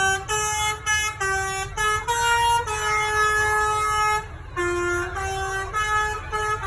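A bus's musical multi-trumpet air horn (basuri, the 'telolet' horn) playing a quick tune of changing notes. One note is held for about a second and a half midway, and there is a short break just past four seconds, over a steady low rumble.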